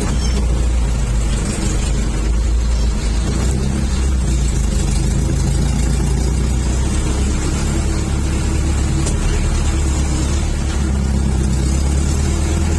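Diesel engine of a Toyota FJ40 running steadily at an even, low pitch.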